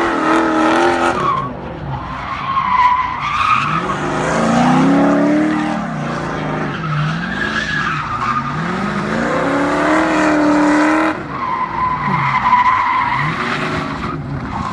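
Open-top sports car drifting: the engine revs rise and fall again and again while the tyres squeal in long screeches. The sound changes abruptly about eleven seconds in, then the revving and squealing carry on.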